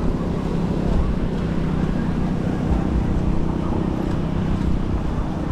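Steady low rumble of wind and road noise while riding a bicycle, with traffic running alongside.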